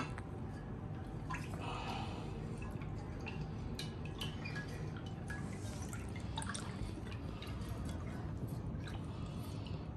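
Drips and small splashes of water in a bowl of pani puri water, with scattered light clicks over a steady low hum.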